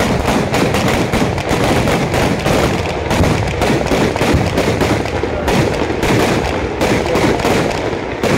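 Ground fireworks fixed on a bamboo-pole frame going off together: a dense, unbroken run of sharp cracks and bangs as the fountains spray sparks.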